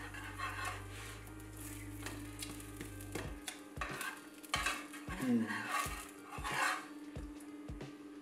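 Metal spatula scraping and knocking against a nonstick frying pan as an egg-dipped sandwich is turned over, with a faint sizzle of it frying.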